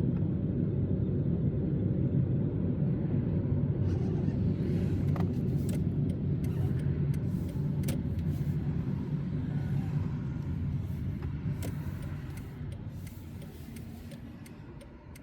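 Car driving with a steady low road and engine rumble that dies away over the last few seconds as it slows to a stop, with a few faint clicks.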